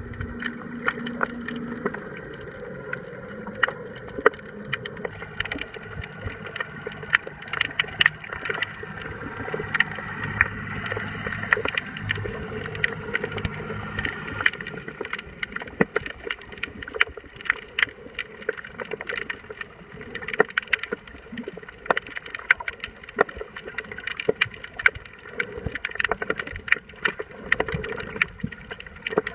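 Underwater ambience picked up by the camera: irregular sharp clicks and crackles over a steady hum.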